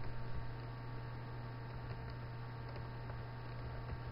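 Steady low electrical hum from the recording setup, with a few faint keyboard clicks as code is typed.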